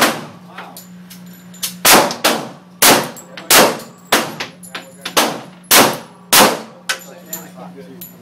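Handgun shots fired indoors: about ten sharp cracks at irregular intervals, each with a short echoing ring, a couple of them fainter than the rest.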